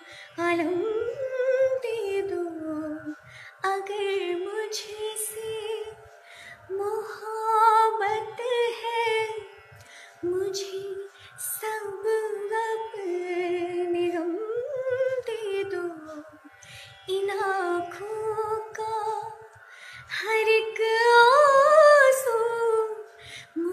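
A young woman singing a slow Hindi song in a sweet voice. Her phrases of two to three seconds bend and ornament the melody, with short breaths between them.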